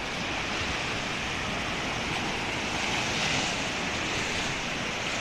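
Small Lake Michigan waves breaking and washing onto a sandy shore, a steady rushing surf.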